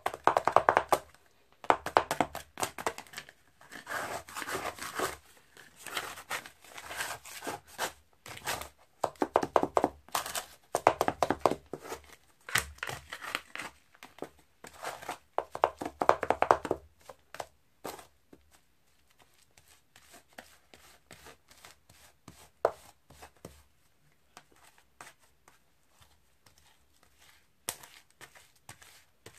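Two plastic spatulas chopping and scraping Oreo ice-cream mix on the chilled metal plate of an ice-cream pan: rapid tapping and scraping in bursts with short pauses. After about 17 seconds it turns to quieter, sparser scraping as the mix is spread out.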